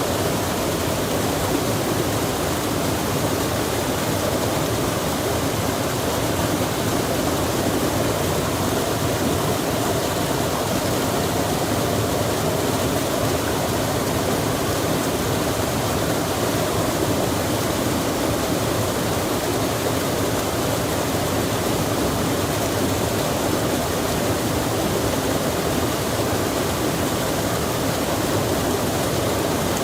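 Rain falling by a stream: a steady, even rush of water that does not change.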